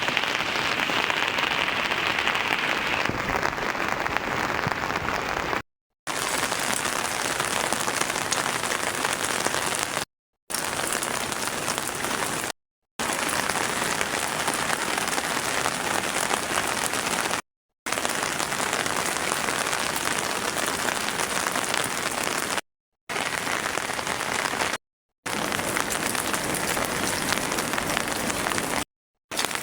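Heavy rain falling steadily in a dense hiss, cut off by several brief dead-silent gaps between joined clips.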